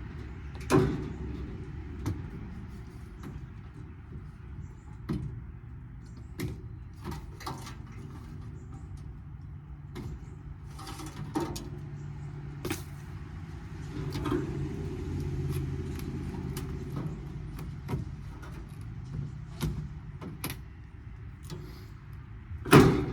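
Scattered knocks and clanks of metal parts being handled while dismantling a large air-conditioning unit, the loudest a sharp bang near the end, over a steady low hum.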